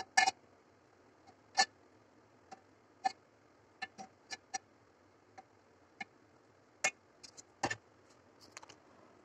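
A series of short, sharp clicks and taps at irregular intervals, a few of them louder, over faint steady hiss.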